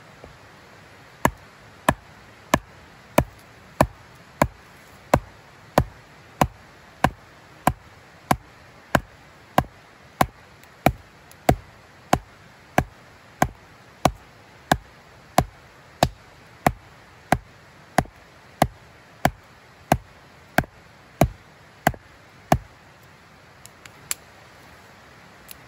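Steady, evenly paced knocking, about three strikes every two seconds, keeping one rhythm for some twenty seconds and then stopping, with two fainter knocks near the end.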